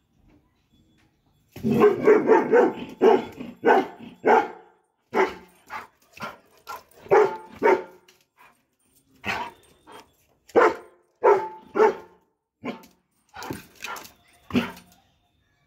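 Doberman barking: a quick run of barks about a second and a half in, then single barks every half second or so, with a short pause in the middle.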